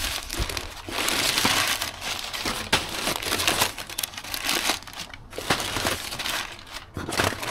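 Crumpled brown kraft packing paper rustling and crinkling as it is pulled out of a cardboard box by the handful, in several bursts with short pauses.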